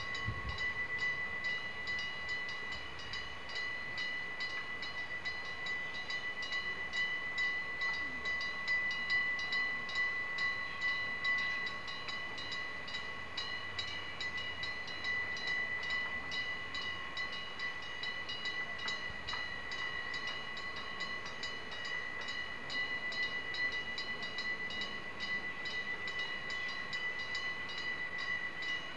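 Japanese railway level-crossing alarm ringing steadily, a fast, even run of pitched dings, while an old electric railcar approaches the crossing slowly.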